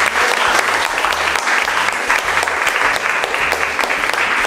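A small audience clapping steadily, many hands at once.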